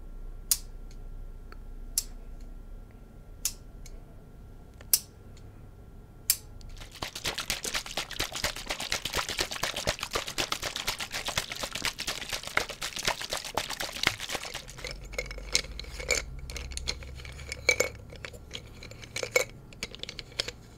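ASMR handling sounds. First come sharp single clicks about every one and a half seconds. Then, for about seven seconds, a dense crackling rattle as a small glass jar of blue granules is shaken. Near the end there are scattered clinks and taps of coloured pencils against a glass jar.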